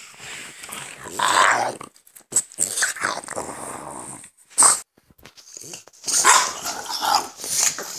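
Two French bulldogs play-fighting, growling in short, irregular bursts with brief pauses between them.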